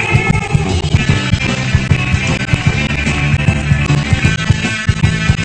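Rock music with guitar, bass and drums.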